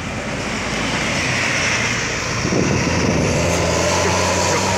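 A large diesel coach bus passing close by with a broad rush of engine and tyre noise, then pulling away up the road. A steady low engine hum comes through in the second half.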